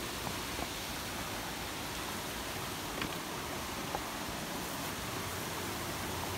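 Forest river rushing steadily, an even hiss of running water, with two faint ticks about three and four seconds in.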